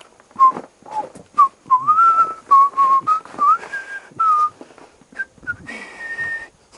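A person whistling a wandering tune in short stepped notes, ending on a higher held note, while something is handled and knocked about with repeated clicks and knocks.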